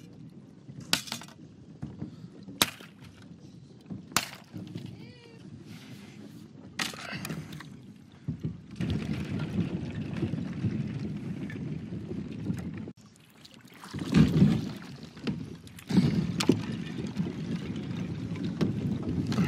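Thin sheet ice breaking against a plastic kayak's hull and paddle: separate sharp cracks at first, then a continuous grinding, scraping crunch as the kayak pushes through the broken ice plates. The crunching stops briefly about thirteen seconds in, then carries on.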